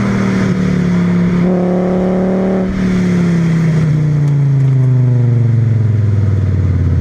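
VW VR5 20V's narrow-angle five-cylinder engine running under way through a straight-through exhaust with a Milltek resonator, its note holding steady and then falling slowly from about three seconds in as the revs drop.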